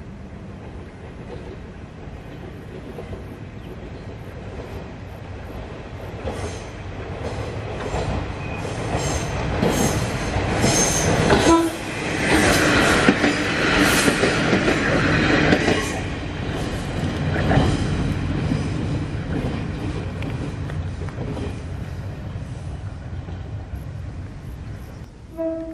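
Two-car Kominato Railway KiHa 200-series diesel railcar train passing close by. It grows from faint to loud, its wheels clicking over the rail joints in quick runs, then fades away as it goes past.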